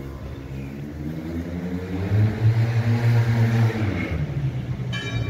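A motor vehicle's engine drives past, growing louder to a peak about halfway through, then dropping slightly in pitch and fading. A brief high-pitched squeak comes near the end.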